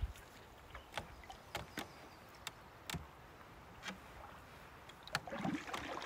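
Canoe paddled through a shallow, rocky stream: quiet water sounds broken by a handful of sharp knocks of paddle and hull against wood and rock.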